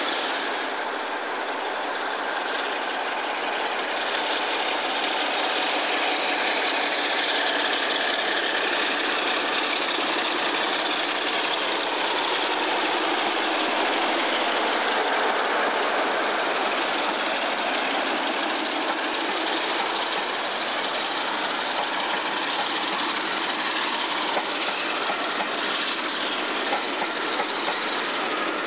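British Rail Class 47 diesel locomotives running under power as they haul passenger trains past, the engine noise mixed with the rumble of the coaches on the rails.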